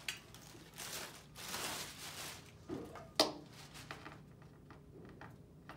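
Clear plastic bag rustling as a vacuum pump is unwrapped, then a single sharp knock about three seconds in as the pump is set down on the table, followed by a few faint clicks.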